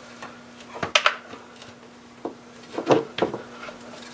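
A handful of light clicks and knocks from handling the removed fuel rail, with its fuel injectors still attached, over the engine. A faint steady hum runs underneath.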